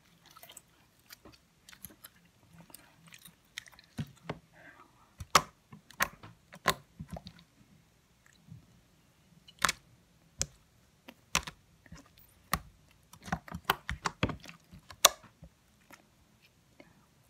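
Irregular wet, sticky clicks and pops of slime being squished and stretched in the hands, mixed with bubblegum chewing, all close to the microphone.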